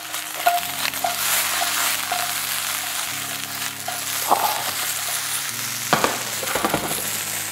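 Sliced boiled potatoes frying in hot fat in a pan: a steady sizzle, with a few short knocks of the pan or utensil. The sizzle is the moisture leaving the potatoes; as it fades, the cook takes it as the sign that their undersides have turned crisp and golden brown.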